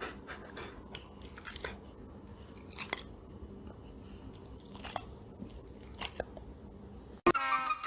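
A pet chewing, with quiet, irregular crunching clicks. Near the end it cuts to louder music with a whistle-like melody.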